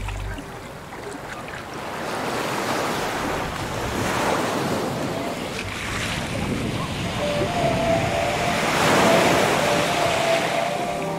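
Shallow sea water washing and splashing around the microphone, with wind on it; the wash swells twice, about four seconds in and again near the end.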